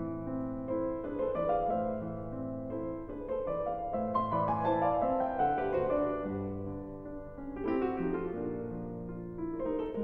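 Background piano music, slow chords of held notes.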